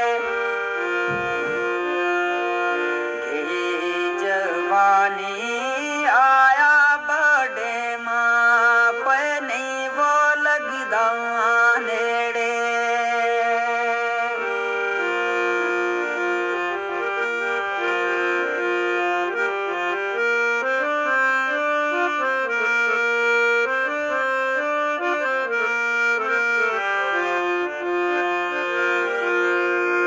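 Instrumental break in a Pahari/Gojri folk song: a reedy instrument holds steady sustained notes, with quick ornamented melodic runs from about 4 to 12 seconds in.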